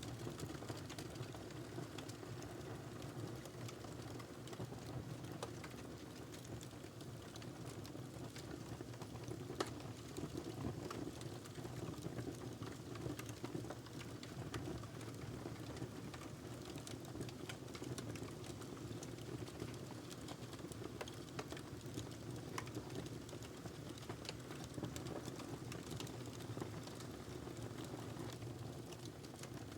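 Wood fire crackling in a fireplace: a steady low rush of burning with many small, irregular snaps and pops, one sharper pop about ten seconds in.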